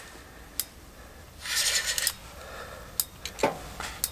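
Spinning reel on an ice-fishing rod being cranked to bring in a hooked fish: a short rasp about one and a half seconds in and a few sharp clicks later on.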